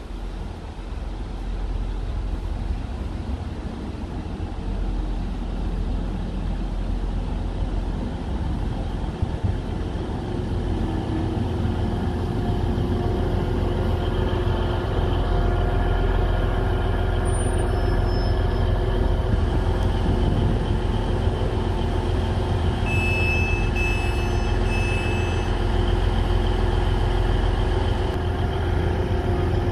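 TransPennine Express Class 185 diesel multiple unit pulling into the platform and standing with its diesel engines running: a low rumble that grows louder as it arrives, then a steady engine hum. A quick run of short high beeps comes about 23 seconds in.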